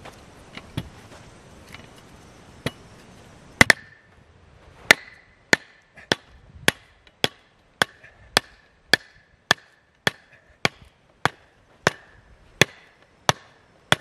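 Hammer striking the top of a hardwood log set in a ring-type kindling splitter, driving it down onto the blade. A few light knocks come first as the log is set, then about sixteen sharp blows at a steady rhythm, roughly every 0.6 s, each with a short metallic ring. The hardwood is tough, taking blow after blow to split.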